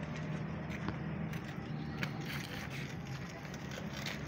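A steel tyre bar clinking and knocking against a truck wheel's steel rim as the tyre is levered off by hand: a scatter of short metallic clicks, more of them in the second half, over a steady low hum.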